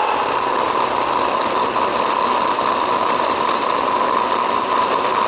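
Ryobi P546 18V brushed cordless chainsaw cutting through a small dead branch, its motor and chain running with a steady whine. The cut goes slowly, a sign of the saw's modest power.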